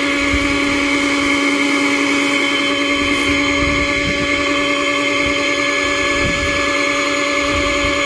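Small 12-volt air blower motor for a tote hot tub's bubbler running with a steady, noisy electric hum. No bubbles are coming up through the water, a fault the owner has yet to track down.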